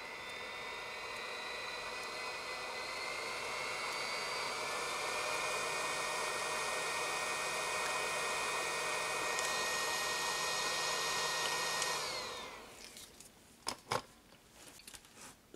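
Hot air gun of a JCD 8898 rework station blowing, its fan whine rising in pitch and getting louder over the first few seconds as the fan speed is stepped up, then holding steady. About twelve seconds in the fan winds down as the gun shuts off, followed by a couple of light clicks.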